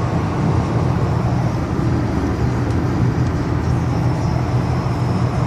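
Steady low rumble of road and engine noise heard inside the cabin of a car travelling along a highway.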